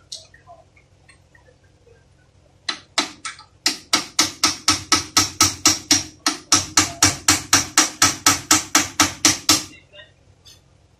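Hand hammer striking, through a metal drift or socket, on a Toyota Passo steering rack clamped in a bench vise: a rapid, even run of metal-on-metal blows at about four a second, with a short pause partway through. The blows begin a couple of seconds in and stop shortly before the end.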